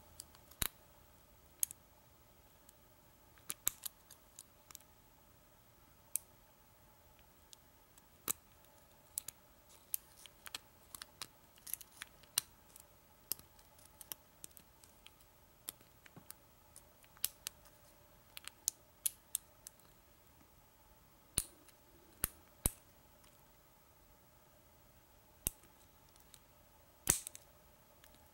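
Faint, irregular clicks and taps of lock picks working the slider pins of a Kwikset SmartKey padlock's core, a few clicks every second or two, with a somewhat louder click near the end.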